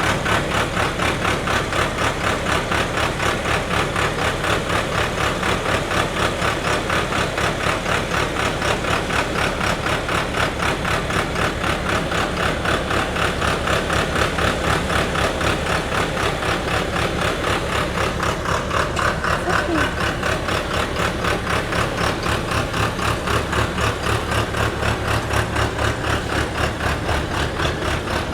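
Engine of an HQZ-320L crawler-mounted pneumatic drill rig running steadily, with an even, fast pulsing, while the rig raises its drill tower.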